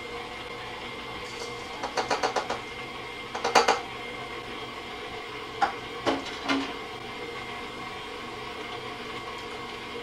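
Electric stand mixer running steadily, creaming butter and sugar in its steel bowl. Sharp clinks and taps sound over it as ingredients go in: a quick run of about six about two seconds in, the loudest cluster a second later, and three more just after the middle.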